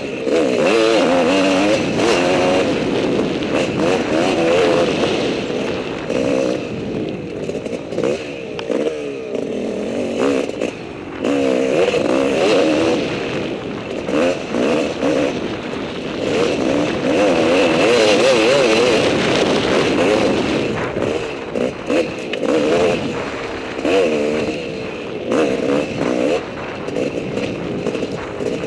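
Enduro dirt bike engine heard close up from on board, its revs rising and falling constantly as the rider works the throttle over rough, rocky trail. Scattered knocks and clatter from the bike hitting rocks and ruts run through it.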